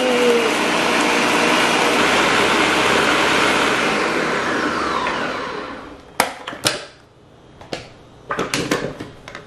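Ninja Professional 1000 W countertop blender running loud on a protein shake, then switched off: about five seconds in its motor winds down with a falling whine. It is followed by a few sharp clicks and knocks as the pitcher is handled on the base.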